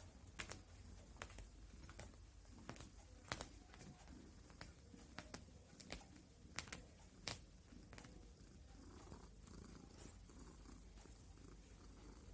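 Faint, irregular light clicks, about a dozen in the first eight seconds and sparser after, over a low steady hum.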